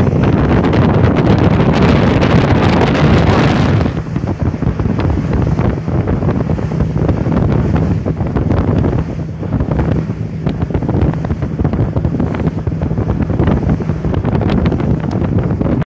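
Motorboat engine running steadily under way, with wind buffeting the microphone and water rushing past the hull. The wind rush eases after about four seconds.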